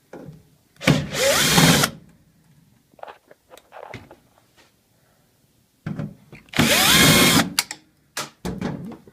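Bosch power drill running in two bursts of about a second each, its motor pitch rising as it spins up, with a few short trigger blips between and near the end: it is backing screws out of a dryer's top panel.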